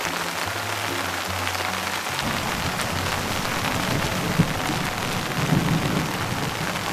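Steady rain falling on water, with thunder rumbling in from about two seconds in: a sharp crack near the middle, then a louder rumble a second later.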